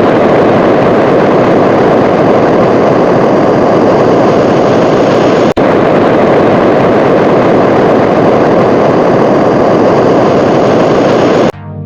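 Loud, steady rumbling rush of noise with no clear pitch, presented as the sound of liquid methane on Saturn's moon Titan. It drops out for an instant about halfway through and then carries on unchanged, as a looped recording would.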